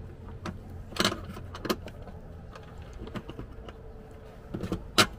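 Scattered light clicks and knocks of a heavy battery cable and its terminal being handled at a plastic junction box, with a sharper click near the end.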